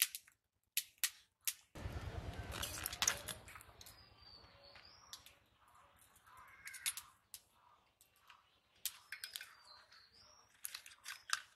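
Scattered sharp clicks and scraping as stinging catfish are scraped and cut with a knife against a boti blade, with a stretch of rubbing scrape about two to four seconds in. A bird calls faintly twice in the background.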